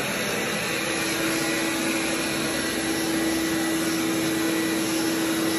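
Vacuum cleaner running steadily over carpet, a continuous whooshing noise, with a steady hum tone joining in just under a second in.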